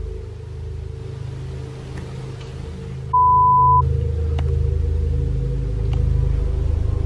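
Low, steady droning rumble of dark background music. About three seconds in, one short, loud, high electronic beep is heard as the picture cuts to black.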